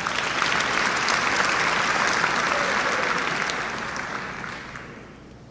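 Audience applauding, full for the first few seconds and then dying away near the end.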